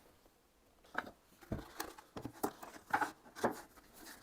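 Wooden brace pieces being handled and fitted in place: a run of light knocks, clicks and short scrapes starting about a second in.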